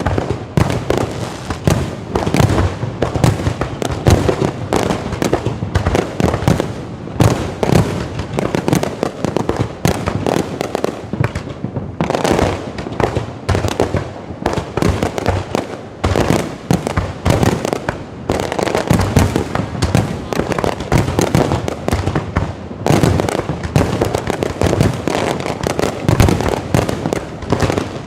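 Low-altitude fireworks display going off in a dense, unbroken string of bangs, several a second.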